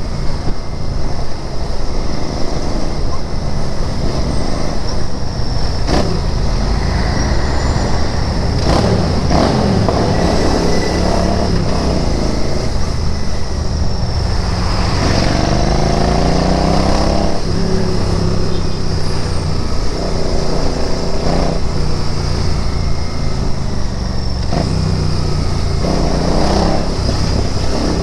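Royal Enfield Interceptor 650's parallel-twin engine running on the move, its revs rising and dropping back several times as the bike accelerates through the gears and eases off.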